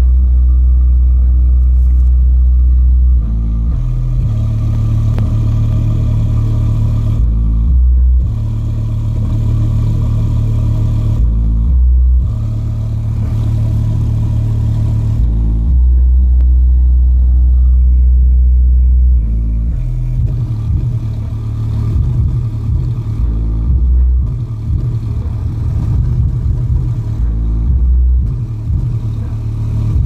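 Bass-boosted music played loud through a subwoofer: long held deep bass notes that change pitch every few seconds, turning to quick choppy bass hits in the second half.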